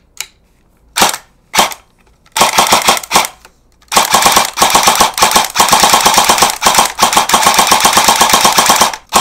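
Matrix Tactical Special Edition AK electric airsoft gun firing on an 11.1 V LiPo: two single shots about a second in, a short rapid burst, then near-continuous full-auto from about four seconds in, broken by brief pauses. The trigger does not lock up on the 11.1 V battery.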